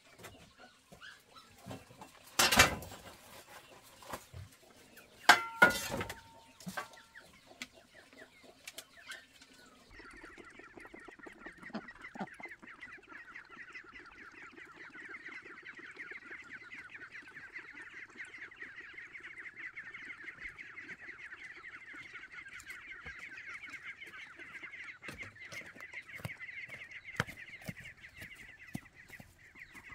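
Farmyard fowl calling: two loud, sudden sounds a few seconds in, then a steady, dense chatter of many birds from about ten seconds in.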